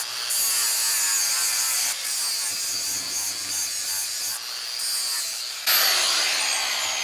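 A hand-held grinder grinding built-up weld off a bench vise, a steady high whine under rasping metal that rises and falls as the disc bites and eases. About six seconds in it gets louder, then the whine drops steadily in pitch as the grinder winds down.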